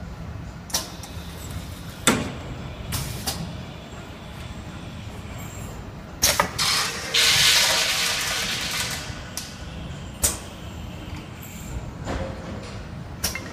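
A semi-automatic capsule filling machine and its workshop: a steady low hum with scattered sharp metallic clicks and knocks. About seven seconds in comes a loud rush of air lasting about two seconds and fading away.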